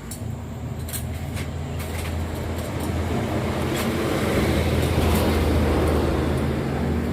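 An engine running, growing louder over the first few seconds and then holding steady, with a few light metallic clicks near the start.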